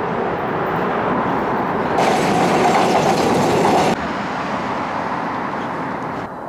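Steady rumbling noise of a moving vehicle, in three abruptly cut segments, loudest in the middle one.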